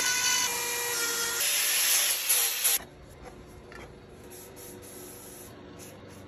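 Power tool grinding wood, a loud hiss with a whine that shifts in pitch, cutting off suddenly about three seconds in. Quieter rubbing on the wood follows.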